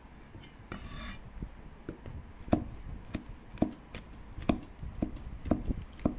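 Chinese cleaver chopping soaked dried shrimp on a bamboo cutting board: separate sharp knocks, about two a second, starting about two and a half seconds in. A brief scrape comes about a second in.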